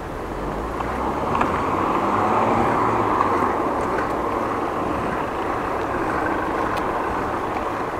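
A car accelerating past, its engine and tyre noise swelling over the first couple of seconds and then holding steady.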